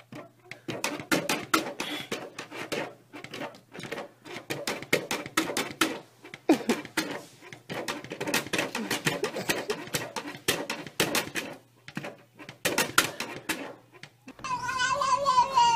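Small dogs barking in a fast, uneven run of short yaps mixed with clacks, breaking off near the end.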